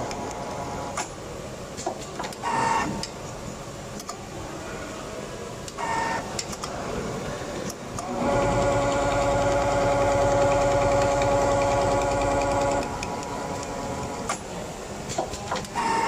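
Richpeace computerized template sewing machine running an automatic stitch cycle, with a steady machine hum. The hum grows much louder, with a low rumble, for about four seconds in the middle of the cycle. Sharp clicks and short bursts of hiss come at intervals.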